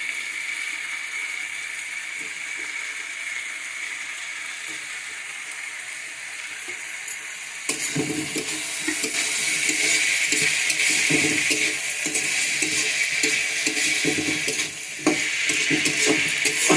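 Chopped vegetables, cauliflower just added, sizzling in hot oil in a pan. From about eight seconds in the sizzle grows louder, and a spatula stirs and scrapes with repeated clatter against the pan.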